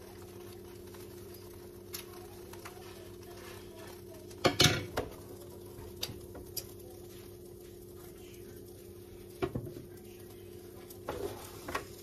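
Kitchen handling clatter over a steady low hum: scattered knocks and clinks of dishes and the hinged metal lid of an electric contact grill as it is lifted, with the loudest clanks a little under halfway through.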